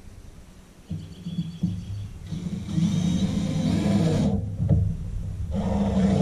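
Cordless drill driving 3½-inch deck screws into pressure-treated 2x8 boards, in two runs of about two seconds each: one starting about two seconds in and stopping sharply, the other near the end.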